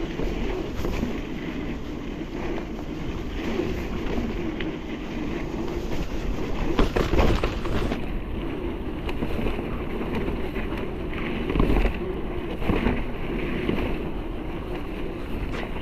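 Electric mountain bike rolling along a rough trail: a steady rush of wind on the microphone and tyre rumble, with a few sharp knocks and rattles over bumps, the loudest about seven seconds in.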